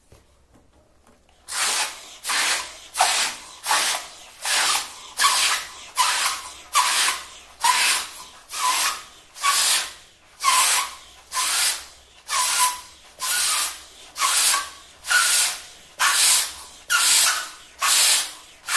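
A large latex balloon being blown up by mouth: a steady series of short, breathy puffs, a little more than one a second, starting about a second and a half in.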